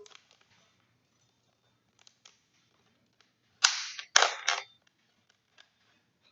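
Thin plastic water bottle crackling as it is squeezed and poked with scissors: three loud sharp cracks close together between about three and a half and four and a half seconds in, with faint clicks around them.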